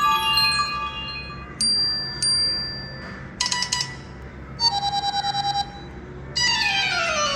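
iPhone 14 Pro Max loudspeaker playing short previews of different built-in ringtones one after another, each chime-like snippet stopping after a second or so as the next begins; about five in turn, the last a falling run of notes.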